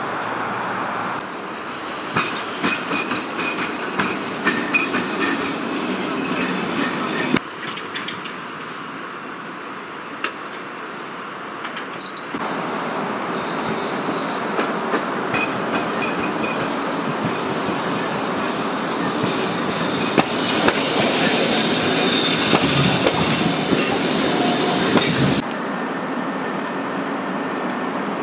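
Trams running on street track: wheels squealing on curves with high ringing tones, and clicking and clattering over rail joints and points. The sound changes abruptly several times.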